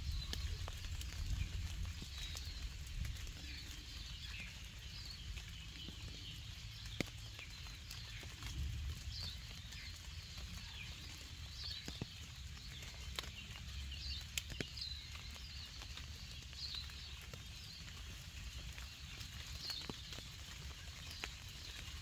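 Birdsong: short high chirps and trills repeating every second or two, over scattered sharp ticks of raindrops dripping and a low rumble.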